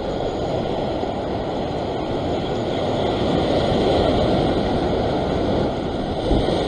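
Sea surf washing and churning against the rocks, a steady rushing noise that swells a little in the middle.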